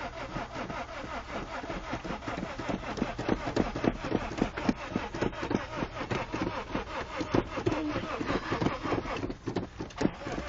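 Honda Civic HX four-cylinder engine being cranked over by its starter in a rapid steady rhythm without catching; the engine is flooded, in the filmers' own view.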